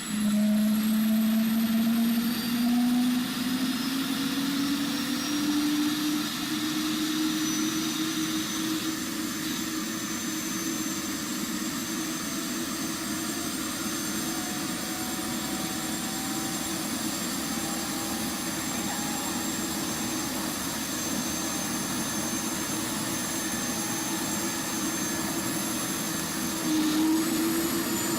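A vehicle engine running steadily, its main tone rising slowly in pitch over the first several seconds and then holding level, with a faint high whine above it.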